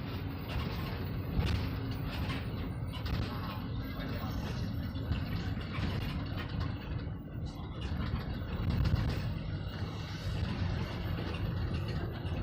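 Road vehicle running in slow traffic: a steady low engine and road rumble, with a few short knocks.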